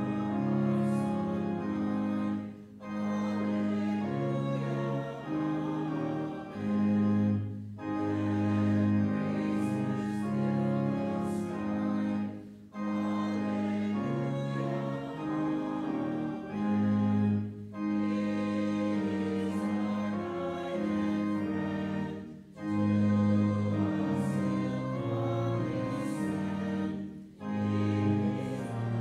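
Church organ playing a hymn in held chords, phrase by phrase, with a short break about every five seconds. A congregation sings along.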